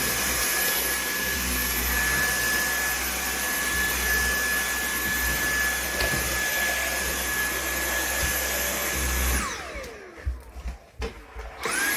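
Dyson V8 Animal cordless vacuum running steadily, a rush of air with a high motor whine. About nine and a half seconds in it is switched off and the whine falls as the motor winds down, with a few knocks in the pause. Near the end it starts up again, the whine rising back to full speed.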